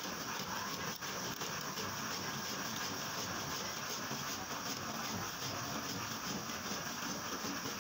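Hand saw cutting through a partition panel with back-and-forth strokes, a steady scratchy sawing noise.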